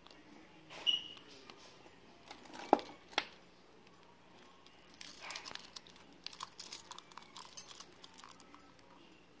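A bunch of metal keys clinking and jangling as it is handled and taken down from a hook: a few separate clinks in the first three seconds, then a run of quick light jingling from about five seconds in.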